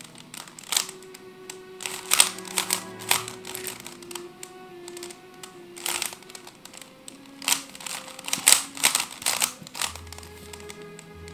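A plastic 3x3 Rubik's cube being turned by hand, its layers clicking in quick irregular runs of clicks, over soft background music.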